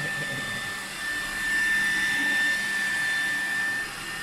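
Vacuum cleaner running steadily, its motor giving a constant high whine over a rushing hiss, a little louder from about a second and a half in.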